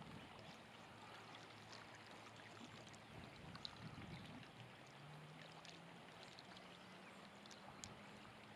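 Near silence: faint lakeside ambience with a few light ticks, and a faint steady low hum from about five seconds in.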